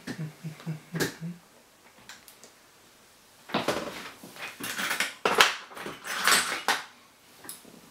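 Hand tools being rummaged through on a fly-tying bench, metal tools clattering and rustling, while a pair of scissors is searched for. A few light taps come in the first second, and the clattering starts about three and a half seconds in and goes on for a few seconds.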